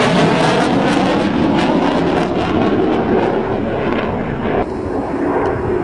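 Loud jet engine noise of a fighter jet passing low overhead, a dense rumble with a crackling edge. It turns duller about four and a half seconds in as it draws away.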